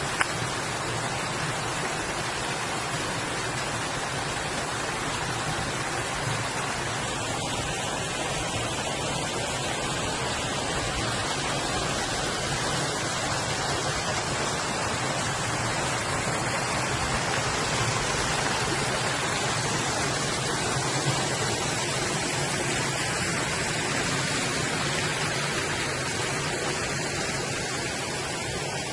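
Steady rush of falling water from a waterfall running low, reduced to a partial flow over the rocks in a dry summer.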